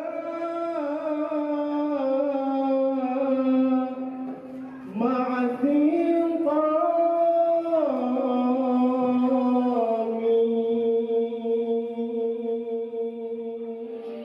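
A man's voice chanting a melodic Qur'an recitation through a microphone, in long held notes that slide and ornament between pitches. There is a short pause for breath about five seconds in.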